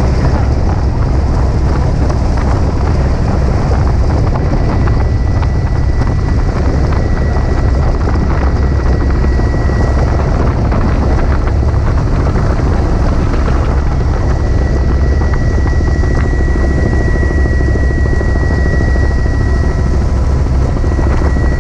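Helicopter in flight heard from inside the cabin with its doors off: a loud, steady drone of engine and rotor mixed with rushing air. A thin high whine comes and goes above it.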